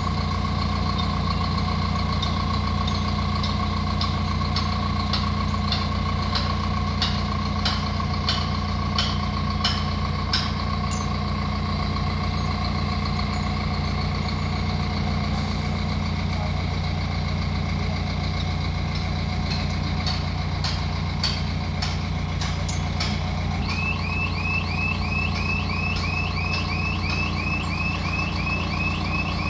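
Heavy diesel engine of a large mobile crane running steadily under a steady high warning tone, with a string of sharp knocks in the first ten seconds or so. About six seconds before the end, a fast chirping alarm starts, several chirps a second, like a reversing alarm.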